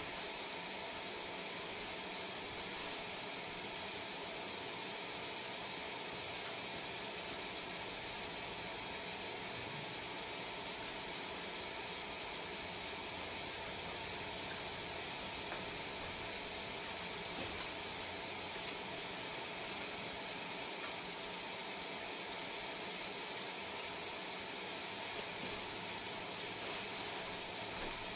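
Steady, even hiss of room tone and recording noise, with no distinct events.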